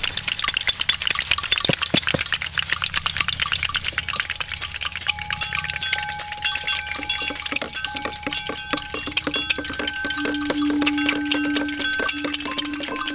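Hand percussion played by a group: rattles and sticks shaken and tapped in a fast, dense clatter, with several steady held tones joining in from about five seconds in.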